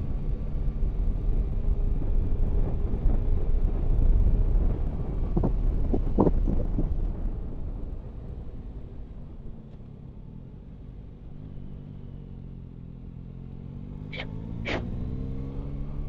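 Yamaha Tracer 9 GT's three-cylinder engine under riding wind and road noise, heard from the rider's helmet. The rush is heavy at first and drops about eight seconds in as the bike takes a bend, then the engine note climbs steadily as it accelerates away.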